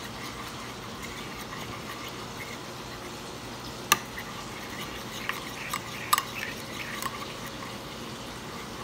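Metal spoon stirring a wet mayonnaise mixture in a ceramic bowl, with a few sharp clinks of the spoon against the bowl. The loudest clink comes about four seconds in and a small cluster follows around six seconds.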